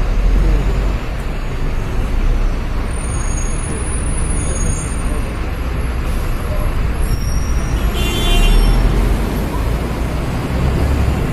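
Open-top double-decker tour bus driving along a city street, heard from the upper deck: a steady low engine rumble with traffic noise, and a brief high squeal about eight seconds in.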